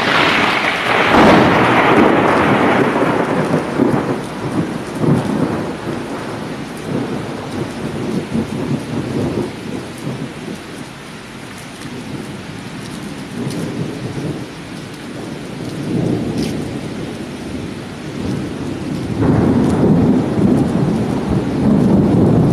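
Thunder and rain in a tropical cyclone storm: a loud crack right at the start that rolls away over a few seconds, then rumbling that swells again near the end.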